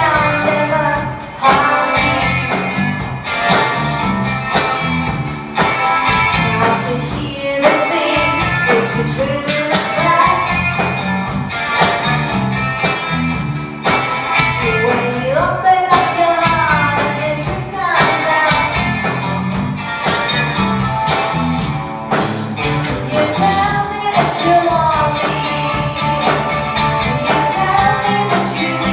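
A live rock band plays a song with a woman singing lead over drums, bass guitar and electric rhythm guitar, the drums keeping a steady beat.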